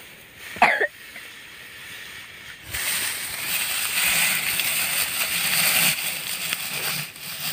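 Dry rice straw rustling as it is pulled up and bunched by hand close to the microphone, starting abruptly about three seconds in and continuing steadily.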